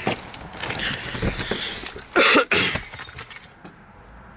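Rustling and knocking of a handheld camera rubbing against a jacket while someone gets into a car, with a loud short noise about two seconds in.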